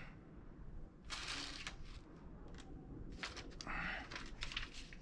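Hands working modelling clay on a sculpture: bursts of rustling and rubbing with a few small clicks.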